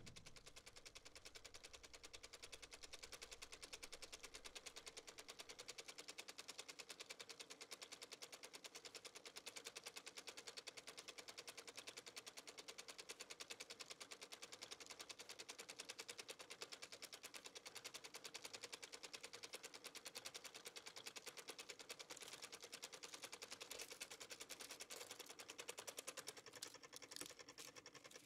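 Faint, rapid, steady mechanical clicking, many ticks a second, over a faint hum, growing a little louder and more uneven near the end.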